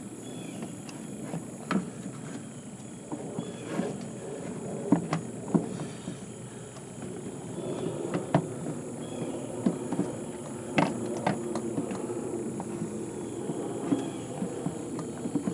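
Irregular sharp clicks and light knocks of hand work on the outboard as tools and parts are handled, over a steady low hum and a faint high whine.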